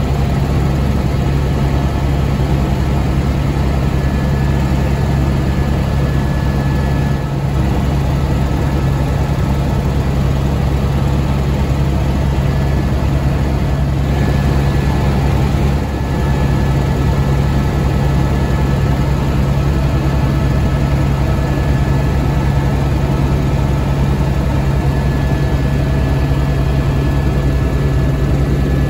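Helicopter cabin noise in flight: a loud, steady drone of the rotor and engine, with a few faint steady whining tones above it.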